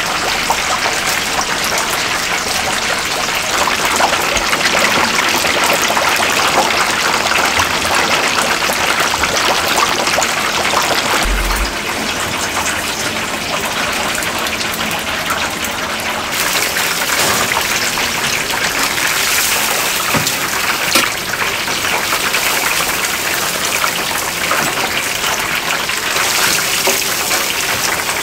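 Tap water running and splashing steadily, its sound getting brighter about 16 seconds in.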